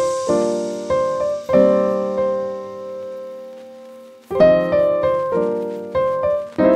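Background piano music: chords struck in a slow rhythm, one left to ring and fade for nearly two seconds in the middle before the playing picks up again.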